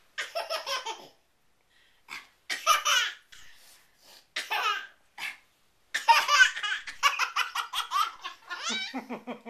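Baby laughing in bursts, breaking off into short pauses, then a long run of quick laughs in the second half.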